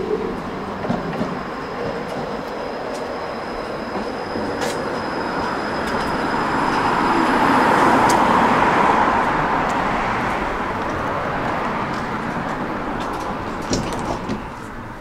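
A tram approaching along the track and pulling in beside the platform. The rolling noise of its wheels on the rails swells to its loudest about halfway through, then eases as it slows to a stop.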